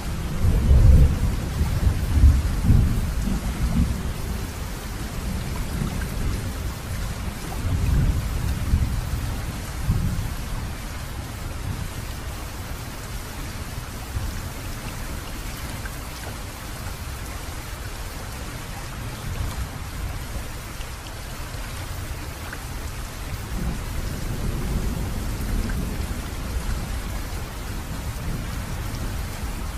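Steady rain with rolling thunder. The rumbles swell several times and are loudest in the first few seconds.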